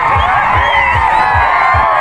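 A large crowd of many voices shouting and calling at once over music with a fast, steady low beat.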